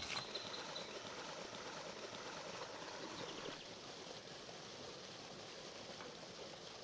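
Soft, wet rustling of pomegranate arils being rubbed and pressed by hand against a perforated aluminium colander.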